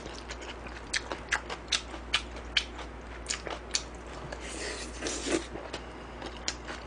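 Close-miked chewing of a big mouthful of rice in black bean sauce: irregular wet smacking clicks from the lips and mouth, with a couple of longer hissier sounds in the middle.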